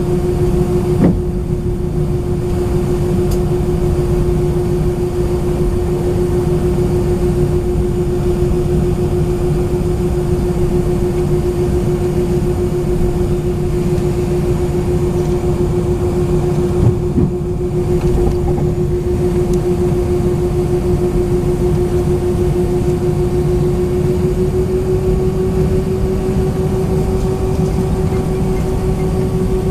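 Cabin noise of an Airbus A319-131 on the ground with its IAE V2500 engines at idle: a steady hum with a constant drone tone over low rumble, the tone's pitch edging up slightly in the last few seconds. A couple of faint knocks come through the cabin.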